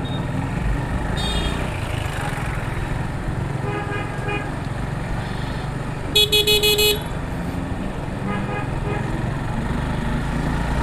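Street traffic heard from a moving motorcycle: a steady low engine and road rumble with vehicle horns tooting. A loud horn sounds in several quick pulses a little past the middle, with fainter horns about a second in and around four seconds.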